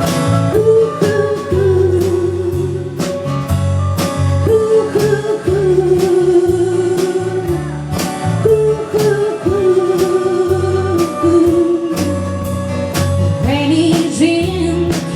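Live band playing an instrumental passage: a sustained lead melody with vibrato over acoustic guitar, bass and a steady beat of about two drum hits a second.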